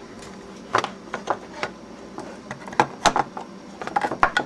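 Irregular clicks and light knocks from an old analogue clamp-on ammeter's rotary range switch being turned and its case being handled while it is powered up, busiest in the last second and a half.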